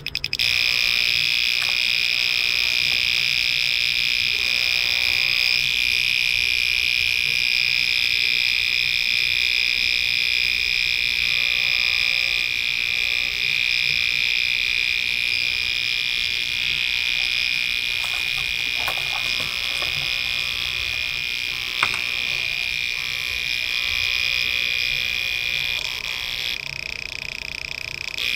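Homemade reversing buzzer made from an ordinary relay, capacitor and small speaker on 12 V, sounding a continuous high, steady buzz. A couple of brief clicks come late on.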